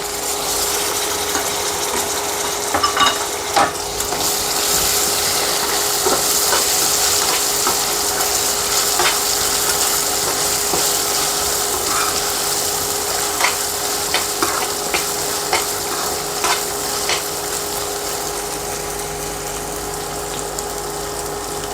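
Onions, ginger-garlic paste and green chillies frying in hot oil in a pan: a steady sizzling hiss, with the spoon clicking against the pan now and then as it is stirred.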